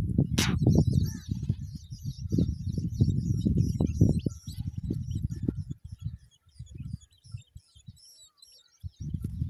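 Small birds chirping and twittering in many quick high notes over a louder, uneven low rumbling that thins out after about six seconds. There is one sharp click near the start.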